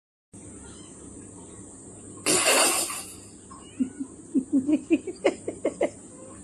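Animal sounds: a loud, harsh noisy burst lasting under a second about two seconds in, then a quick run of about a dozen short calls over roughly two seconds.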